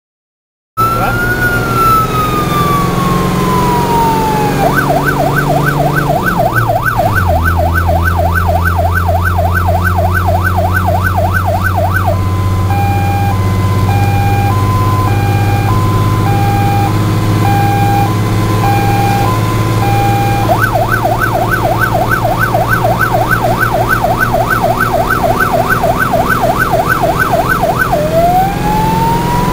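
Fire truck's electronic siren, heard from inside the cab, switching patterns: a falling wail, a fast yelp, an alternating two-tone hi-lo, the yelp again, and a rising wail near the end. Under it runs the steady drone of the Star truck's engine, which drops in pitch about seven seconds in.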